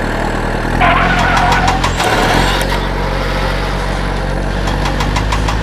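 Mini tractor-bulldozer engine running steadily, with a brief higher sound about a second in.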